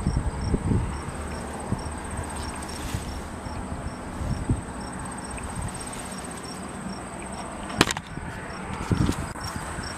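Crickets chirping steadily: a continuous high trill and a quicker pulsed chirp two or three times a second, over a low rumble. Handling bumps and footsteps in grass, with a sharp click a little before 8 seconds.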